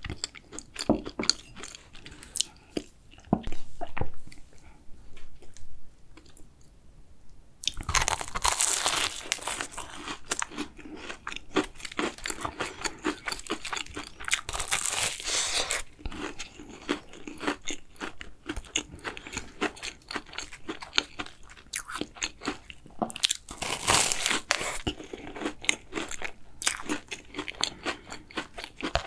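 Close-miked eating of a chocolate cookie choux: the crisp cookie crust crunches loudly under bites and chewing. The first several seconds hold only soft clicks and mouth sounds. Dense crunching starts suddenly after them and comes and goes in loud stretches, with quieter chewing between.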